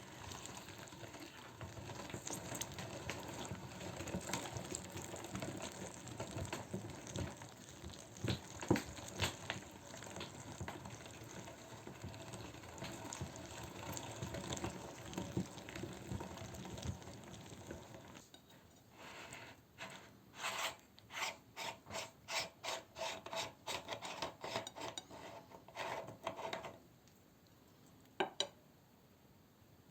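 Meat grinder working through an apple: steady scraping and rubbing with scattered clicks, then, about two-thirds of the way through, a run of separate scrapes and clicks about twice a second. It goes much quieter near the end.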